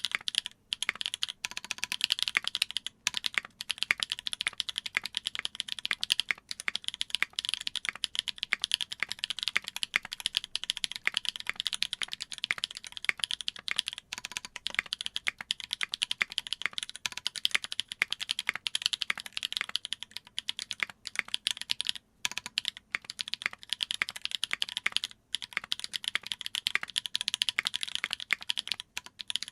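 Fast continuous typing on a Duck Jetfire mechanical keyboard with lubed Holy Panda tactile switches on an aluminium plate and GMK keycaps, a dense stream of key clacks with only brief pauses.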